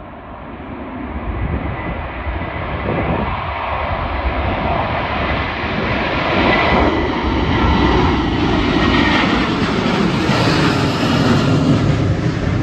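Twin-engine jet airliner taking off and climbing out overhead, its engine noise swelling steadily louder and brighter.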